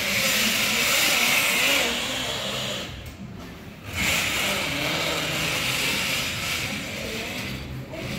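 Zip-line trolley rolling along its overhead metal rail, a loud whirring rumble that stops briefly about three seconds in and then starts again for a second run.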